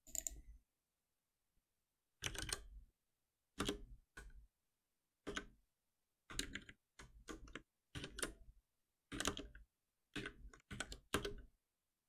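Computer keyboard typing in a dozen or so short bursts of keystrokes, with silence between the bursts.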